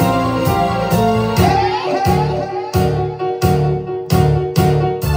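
Rock cover music: a keyboard part played live over a sequenced backing with sustained chords. About a second and a half in there is a rising glide, and from about two seconds in there are heavy drum hits, roughly two a second, with short gaps between them.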